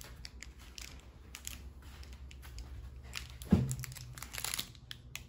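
Plastic freeze-pop sleeves crinkling and rustling as they are handled and set down on plates, with scattered small clicks and one firmer knock about three and a half seconds in.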